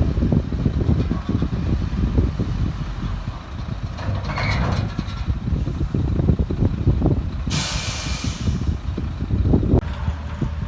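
Heavy diesel construction machinery running, with irregular knocks and clanks. Two hisses of compressed air from a dump truck's air brakes: a short one about four seconds in, and a louder one lasting about a second and a half near the two-thirds mark.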